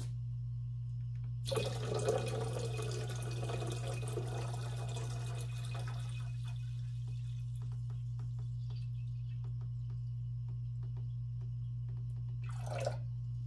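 Distilled water poured from a plastic gallon jug into a glass beaker of silver nitrate solution, splashing loudly for the first few seconds, then a fainter trickle, with a short splash near the end. A steady low hum runs underneath.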